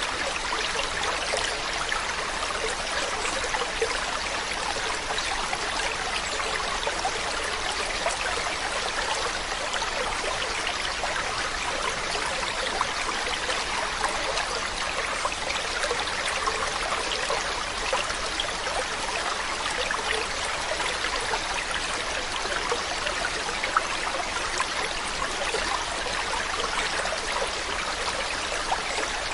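A mountain stream or river flowing over rocks: a steady rush of running water with fine babbling and trickling detail.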